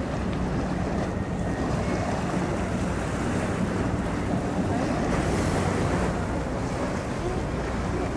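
Steady low drone of a large cruise ship under way, its engines and machinery humming, mixed with wind buffeting the microphone and the wash of harbour water.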